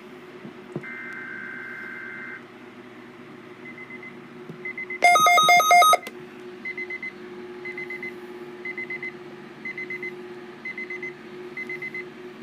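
Weather-radio test alert: the tail of the warbling two-tone data burst that opens the broadcast, then the Midland WR120EZ weather radio's alert beeping, muffled by a hand over its speaker. It gives short high pips about once a second, and about five seconds in a loud second-long run of rapid beeps.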